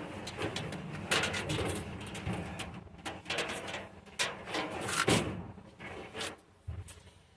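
Irregular rustling and clicking of a tangled bundle of old truck wiring being handled and pulled apart by hand, with a series of sharp clicks and knocks.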